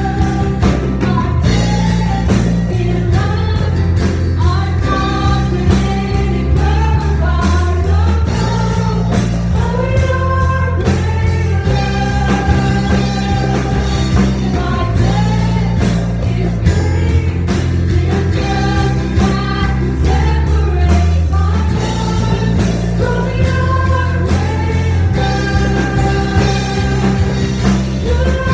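Live worship music: several voices singing a melody over a band, with a strummed string instrument close to the microphone and a strong bass underneath.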